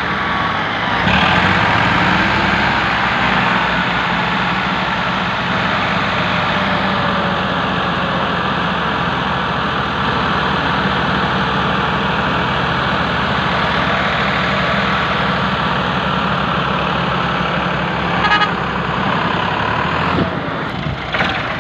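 Ford tractors' three-cylinder diesel engines running under load as they pull a heavily loaded trolley through soft, muddy field soil. The engine note rises about a second in, then holds steady.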